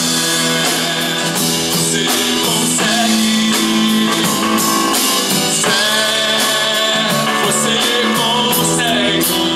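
A rock-style song: singing over guitar and a full band accompaniment, with held notes and a bending vocal line.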